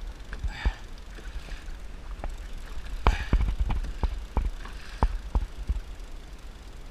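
Small waves slapping and knocking against a plastic kayak hull at irregular intervals, thickest in the middle, over a steady low rumble of wind on the camera microphone.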